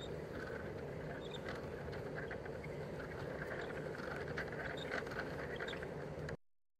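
Wooden automaton mechanism running, with irregular light clicks and knocks from its moving parts over a steady low hum. The sound cuts off suddenly near the end.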